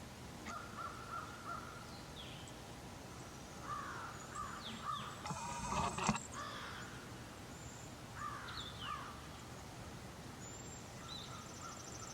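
Birds calling outdoors in a few groups of short sliding calls, the loudest and densest about six seconds in, over steady outdoor background noise.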